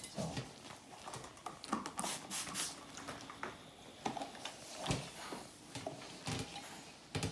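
A shirt being shifted and ironed on an ironing board: intermittent rustling of fabric and the iron sliding over it, with a few short knocks.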